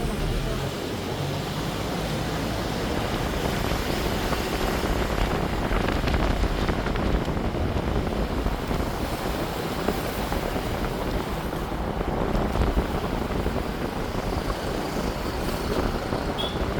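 Steady road and wind noise of a moving car, with a low rumble underneath.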